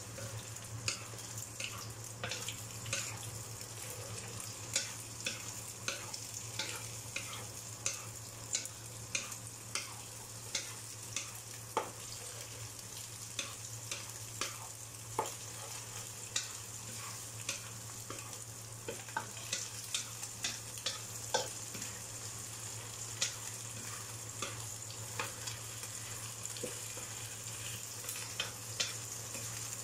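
Eggs with shrimp and spring onion sizzling in a wok while a wooden spatula scrapes and taps against the pan in short, irregular strokes. A steady low hum runs underneath.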